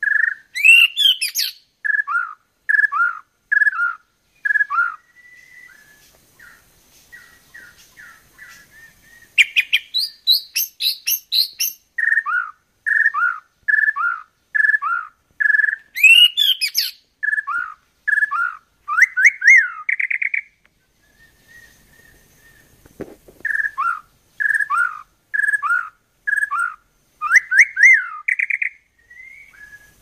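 White-rumped shama singing: runs of short falling whistles at about two a second, broken several times by bursts of rapid, higher twittering, with quieter pauses between the phrases.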